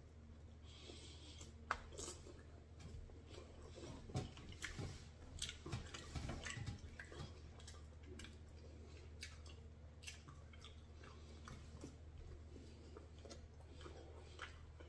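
Faint chewing and wet mouth sounds of a person eating barbecue chicken thighs, with scattered soft clicks, busiest about four to seven seconds in.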